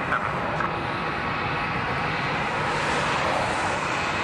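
Jet airliner engines running, a steady rushing noise with a thin high whine that swells a little about three seconds in.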